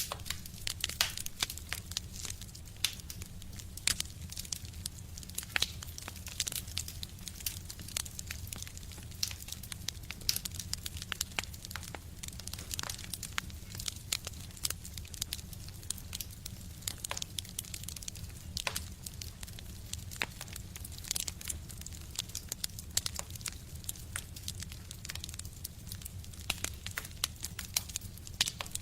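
Wood fire crackling in a stove: irregular sharp pops and snaps, several a second, over a steady low rumble.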